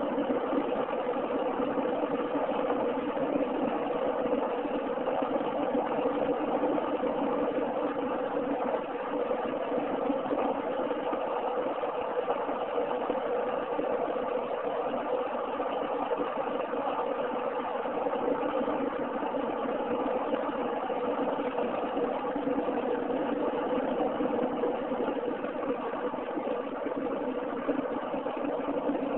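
Steady engine and tyre noise heard from inside a car cruising along a highway.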